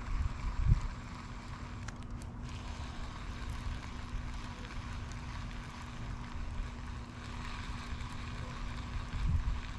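Wind rumbling on the microphone, with a brief low thump about half a second in and another near the end.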